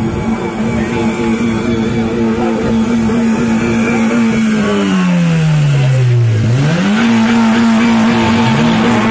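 An engine held at high, steady revs; about five seconds in the revs fall away over a second and a half, then it is revved sharply back up and held high again.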